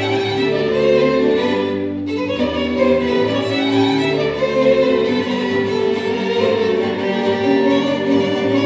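Instrumental string music, violins playing slow, sustained notes that move from one held pitch to the next.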